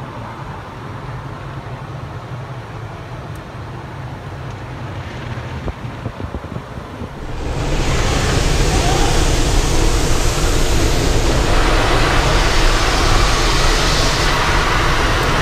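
Automatic car wash heard from inside the car: a low rumble, then about halfway in a loud, steady rush of water spray hitting the car that keeps on.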